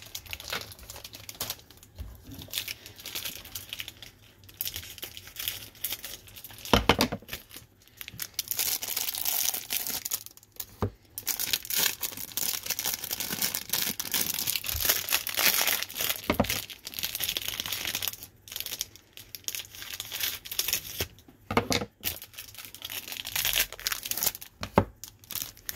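Plastic wrapper of a 1988 Topps baseball-card rack pack crinkling and tearing as it is opened by hand, in irregular spells with short pauses. There is an occasional knock against the table.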